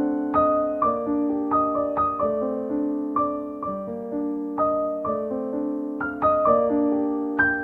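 Background music: a gentle solo piano melody with notes struck about twice a second, each ringing on and fading.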